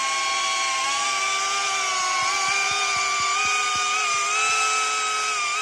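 Small ducted FPV drone hovering low, its motors and propellers giving a steady high whine whose pitch drifts slightly up and down.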